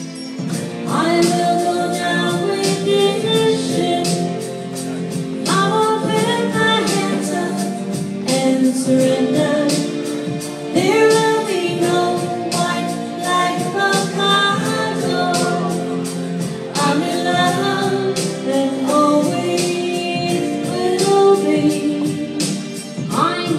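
A woman singing a melody into a microphone over an accompanying backing track with a steady beat.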